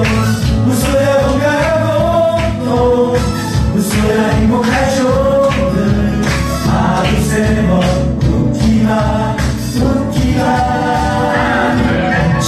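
Song playing, with a sung melody over a steady beat.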